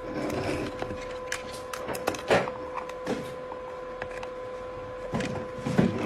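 Irregular clicks and knocks from a cockatoo handling a foraging wheel toy, the wheel knocking as it is pushed and turned, over a steady faint hum.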